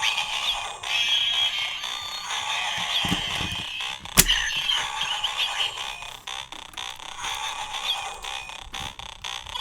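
Bandai DX Bugster Buckle with the Dangerous Zombie Gashat playing its electronic transformation music and sound effects, with a sharp click about four seconds in.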